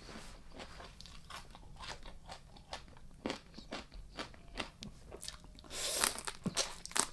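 Close-miked chewing of crunchy food, with a quick run of short crisp crunches and a louder, longer crunch near the end.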